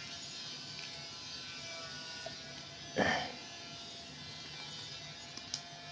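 A faint steady electrical buzz, with one short knock about three seconds in.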